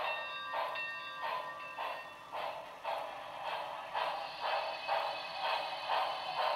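Broadway Limited Santa Fe Blue Goose 4-6-4 model locomotive's sound system playing steam exhaust chuffs through its small speaker. They come in an even beat of about two a second, then quicken to about three a second and grow louder around four seconds in. Several steady high tones sound under the first half and stop about three and a half seconds in.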